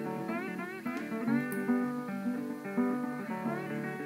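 Background music on guitar: a melody of plucked notes, some with upward slides.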